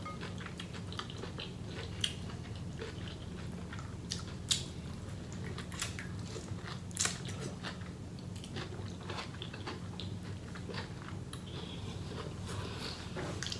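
A person biting and chewing sauce-coated seafood-boil food: irregular crunchy clicks, the sharpest about two, four and a half and seven seconds in, over a steady low hum.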